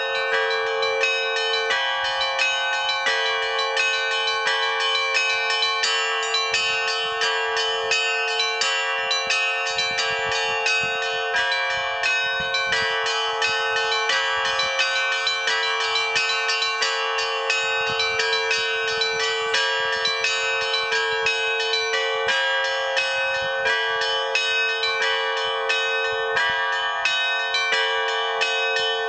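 Russian Orthodox trezvon: several church bells rung together in a steady, continuous peal. Small bells strike in a rapid, dense pattern over a sustained lower ringing tone. The peal is rung at the close of the evening service.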